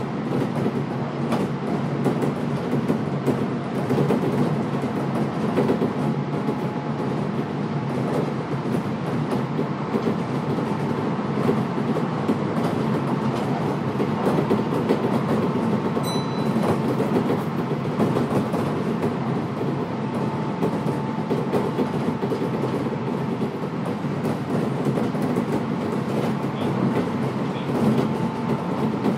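Interior running noise of a Kintetsu electric train under way between stations: a steady rumble of wheels on rail with light clicks and a faint whine that comes and goes.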